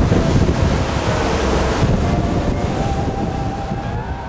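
Rushing water of a moving boat's wake with wind buffeting the microphone, slowly fading down toward the end.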